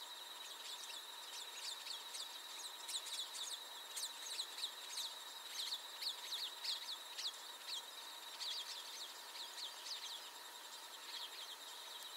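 A bird giving a long run of quick, high, thin downslurred chirps, several a second, loudest in the middle, over a faint steady high whine.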